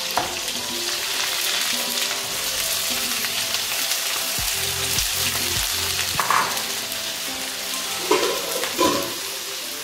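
Chopped red onions frying in hot oil with mustard seeds in a kadai: a steady sizzle once the onions go in.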